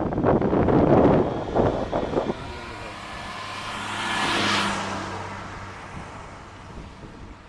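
Wind buffeting the microphone, then a car passing: tyre hiss and engine hum swell to a peak about halfway through and fade away.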